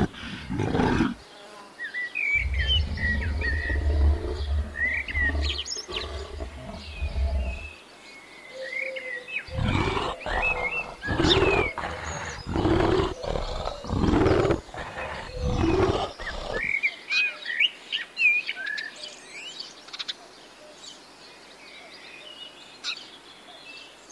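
Brown bears calling at close range: a low steady hum for about five seconds, then a run of about seven loud calls roughly a second apart. Small birds chirp in between and afterwards.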